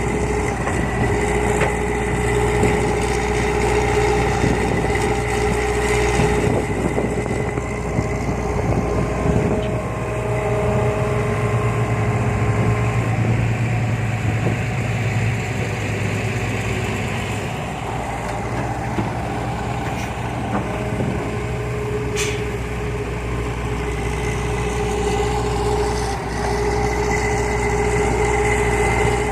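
Heavy diesel engines of a Hitachi excavator and dump truck running steadily while the excavator digs and loads soil, the engine note shifting for a stretch in the middle as the load changes. A brief sharp click about 22 seconds in.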